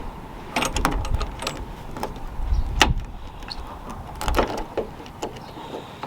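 Irregular sharp clicks and knocks of car door lock hardware being handled, the removed lock cylinder and its clamp.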